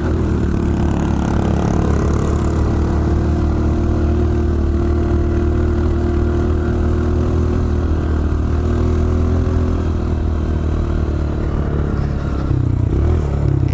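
Honda CRF125F's single-cylinder four-stroke engine running at a steady speed while the bike is ridden, its note holding nearly constant and shifting a little near the end.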